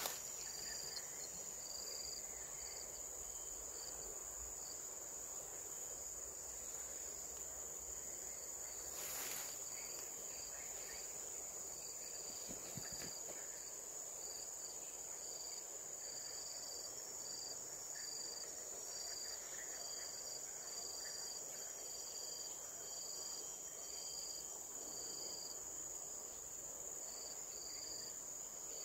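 Insects in chorus: one gives a continuous high-pitched drone, and another chirps in short, regular pulses about once a second at a slightly lower pitch.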